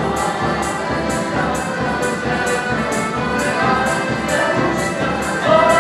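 Live Polish folk band (kapela) playing dance music: held melody notes and a guitar over a steady beat of about two strokes a second.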